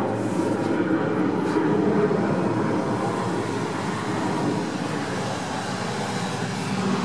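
Steady low rumbling background noise without distinct events, easing slightly a little past the middle.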